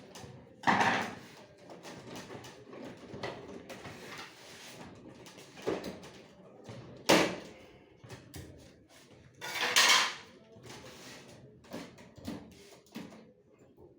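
Handling noise of hard objects: scattered clicks and knocks, a sharp click about seven seconds in, and two brief scraping rushes, one about a second in and one near ten seconds.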